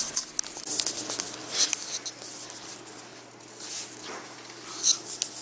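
Handling noises: about half a dozen short papery rustles and scrapes, spaced irregularly.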